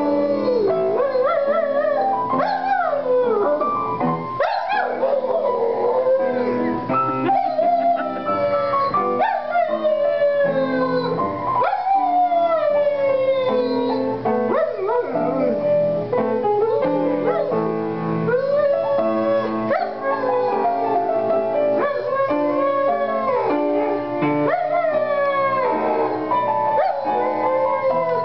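A German Shepherd-type dog howling along to a piano being played, its long wavering howls gliding up and down in pitch over the steady piano notes.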